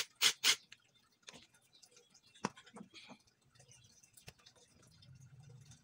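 Small metal parts of a dismantled car starter motor being handled and cleaned on the bench: three short, sharp sounds in the first half second, then scattered light clicks and taps.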